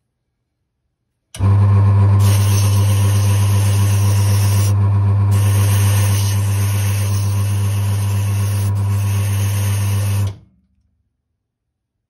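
Key duplicating machine's electric motor switching on and running with a steady low hum while its wire deburring brush spins and a freshly cut key is held against it. It cuts off suddenly near the end.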